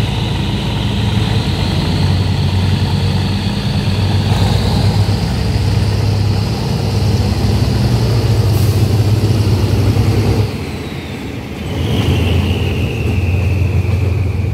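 Diesel-electric locomotive No. 4015 running under power as it hauls a passenger train away from the platform: a steady low engine drone with a high whine that rises slowly. About ten and a half seconds in the engine sound drops away for a second, then comes back with the whine falling in pitch.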